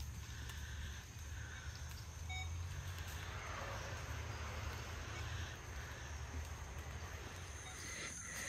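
Outdoor woodland ambience: a steady low rumble, like wind on the microphone, under a faint even hiss, with no distinct events.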